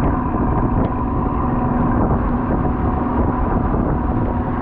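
A crab fishing boat's engine running steadily, giving a constant low rumble with a steady hum.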